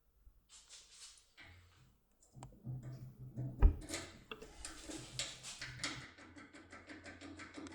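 Metal clicks and scraping of a lockpicking tool being worked in a lock cylinder, with one sharp knock partway through, then a quick, even run of small ticks near the end.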